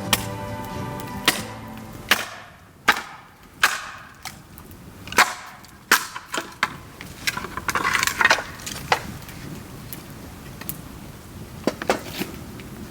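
Bamboo burning in a bonfire, with sharp, irregular pops and cracks from the stalks bursting, and a denser run of crackling about eight seconds in.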